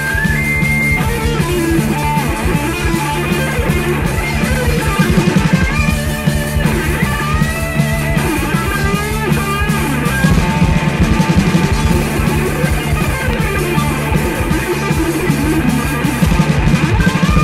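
Instrumental break in a mid-1980s Brazilian heavy metal recording: electric guitars, bass and drum kit playing without vocals, with a guitar line bending notes above the riff.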